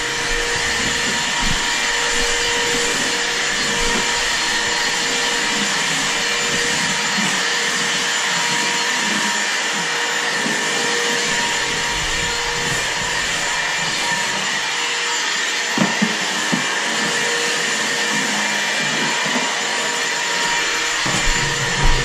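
Stick vacuum cleaner running steadily, a motor whine over a rush of air, with a few light knocks as it is pushed along.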